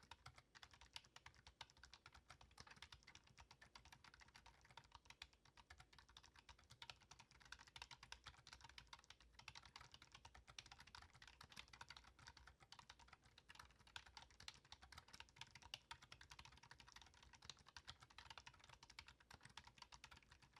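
Faint, continuous typing on a Cherry DW2300 membrane keyboard: a dense, steady run of key presses.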